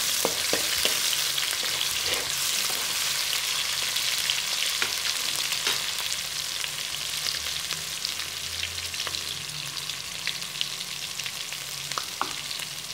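Ginger-garlic paste sizzling in hot oil in a karahi: a steady frying hiss that slowly eases, with a few sharp crackles and clicks near the start and again near the end.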